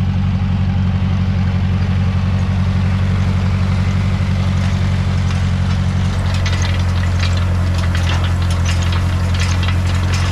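Tractor engine running steadily close by, a low even drone. From about six seconds in, a run of clicks and rattles rides over it.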